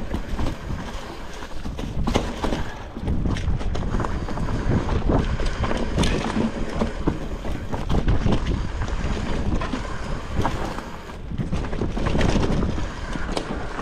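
Titanium hardtail mountain bike descending a dirt singletrack: wind rushing over the microphone, knobby tyres rolling over dirt and dry leaves, and many sharp rattles and knocks from the bike over bumps.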